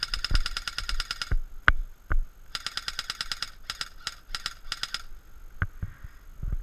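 Airsoft electric gun firing on full auto, its gearbox whining under rapid clicking shots. A burst of about a second and a half comes first, then a shorter burst about two and a half seconds in, then a few quick short bursts. A few dull thumps fall between them.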